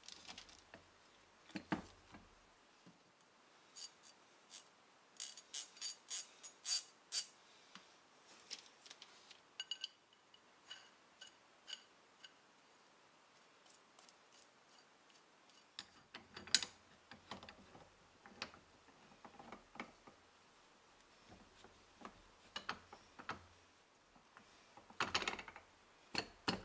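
Light metallic clicks and clinks, some ringing briefly, from the cast-iron jaws of a wood vise being handled and fitted onto their steel guide rods and threaded screw, with a quick cluster of clicks near the end.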